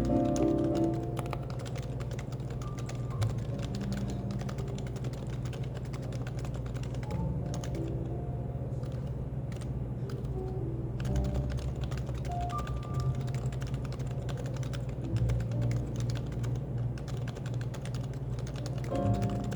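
Continuous typing on a Happy Hacking Keyboard (HHKB), a dense run of key presses, over café background noise with faint music.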